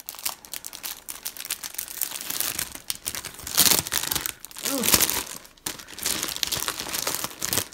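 Clear plastic packaging sleeves crinkling as they are handled and the kits are pulled out of them. The crackles come in irregular bursts and are loudest a little past halfway through.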